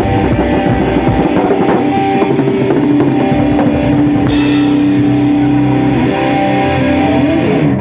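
Heavy hardcore/metal band music: a drum kit pounding hard under distorted guitar chords. About four seconds in a cymbal crash rings out, the drumming thins, and held guitar chords carry on as the song closes.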